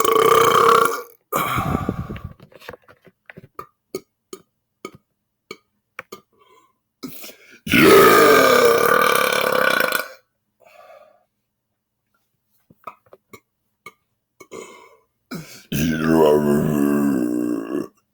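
A man belching loudly four times: two belches close together at the start, a long one about eight seconds in, and another long one near the end, with faint clicks between them.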